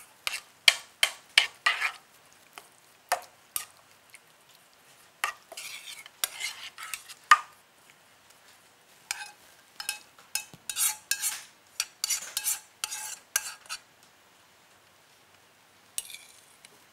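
A spoon stirring seasonings into cooled soy sauce in a small nonstick frying pan, making irregular clinks and scrapes against the pan. The clinks come in clusters, with a pause of about two seconds near the end.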